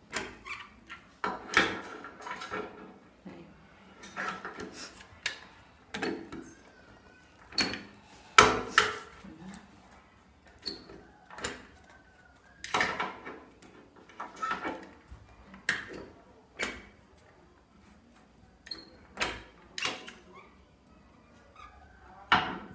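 A large stapler clacking against a wooden picture frame and cardboard backing. Irregular sharp clicks and knocks come a second or two apart, the loudest about eight seconds in, as it is pressed, opened and snapped shut with its staples running out.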